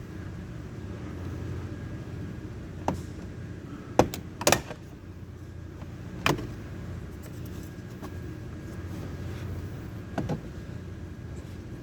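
Several sharp clicks and knocks, the loudest about four seconds in, over a steady low hum: hand work on a vehicle, with tools or parts being handled.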